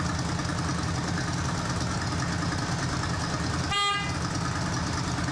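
A motorcycle horn sounds once, briefly, nearly four seconds in, over the steady rumble of a motorcycle engine idling.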